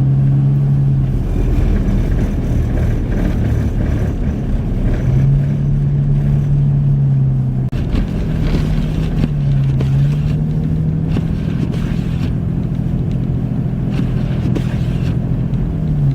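Car driving: a steady engine hum that steps up and down in pitch a few times, over continuous road and tyre rumble.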